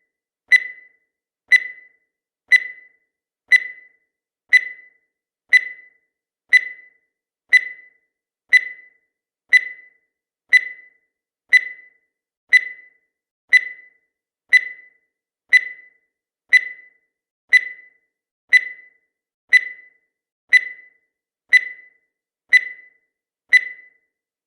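Countdown timer sound effect: a short, high-pitched beep that fades quickly, repeated steadily once a second.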